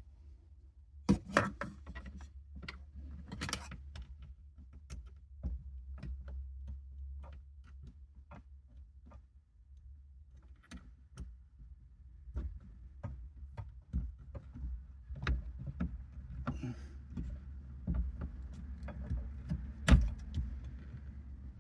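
Handling and clicking of plastic rear-view mirror trim pieces as they are fitted back together: irregular sharp clicks, taps and knocks, with the loudest snaps about a second in and near the end, over a steady low hum.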